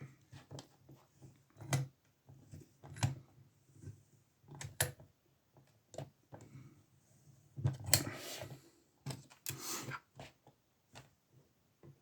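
Scattered metal clicks and knocks, with two short scraping rubs about eight and ten seconds in: a lever padlock being handled and clamped into a bench vise.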